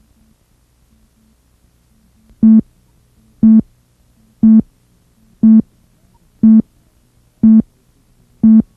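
Countdown beeps on a videotape leader: seven short, loud electronic tones, about one a second, starting a couple of seconds in over a faint low hum. The beeps are slightly clipped.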